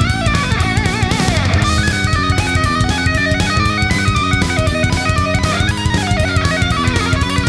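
Background rock music with distorted electric guitar and a steady drum beat; the lead guitar bends and wavers in pitch.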